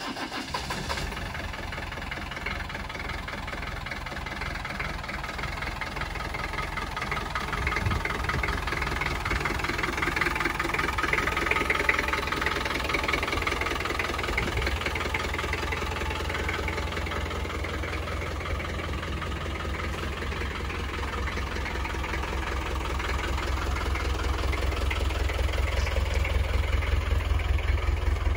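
1988 Land Rover 110's engine idling steadily just after starting up, its low exhaust rumble growing louder in the second half.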